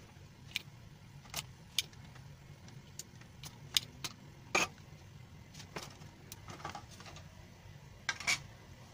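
Scattered sharp clicks and taps of small screwdrivers against a router's circuit board and plastic case as the antennas and board are worked loose, over a steady low hum.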